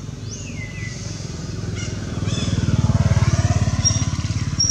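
A vehicle engine passing by, growing louder to a peak about three seconds in and then easing off a little.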